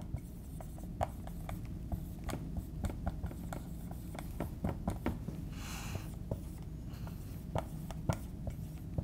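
Dry-erase marker writing on a whiteboard: a string of short taps and strokes, with one longer stroke about six seconds in.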